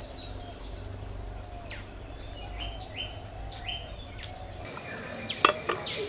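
Birds chirping and whistling over a steady high-pitched insect drone. The drone grows louder about three-quarters of the way through, and near the end a burst of quick, falling whistled notes comes in, one of them loud and sharp.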